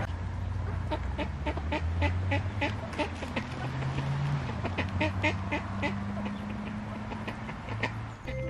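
A flock of mallard ducks quacking and chattering, many short calls in quick succession, over a steady low hum.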